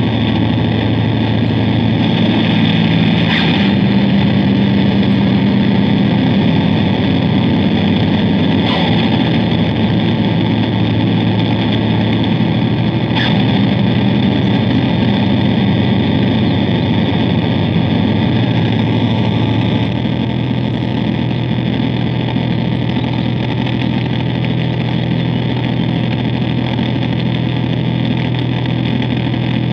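Harsh noise drone from an Ibanez GSR200 bass guitar run through a Zoom G1Xon multi-effects pedal: a dense, heavily distorted wall of fuzz over sustained low notes that shift now and then. The level drops slightly about twenty seconds in.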